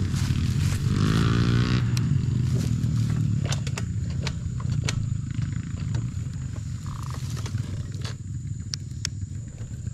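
Small pit bike engines idling steadily, with a cow mooing once about a second in, and a few light clicks and rustles.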